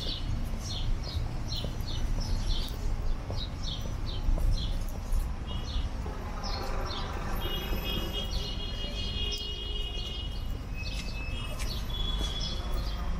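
Small birds chirping repeatedly in short high calls, with a few longer held trills partway through, over a steady low background rumble.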